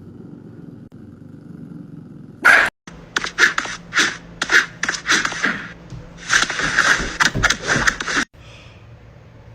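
A dog making a run of short, sharp, noisy sounds, about two a second, starting some two and a half seconds in. They crowd together near the end and then cut off suddenly.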